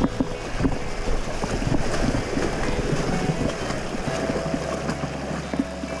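Rushing river water with wind buffeting the microphone, under background music whose steady bass notes change about four seconds in.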